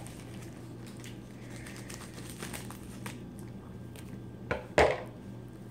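Plastic packaging of a diamond painting kit rustling and crinkling as it is handled. Near the end come two sharp knocks close together, the loudest sounds, over a low steady hum.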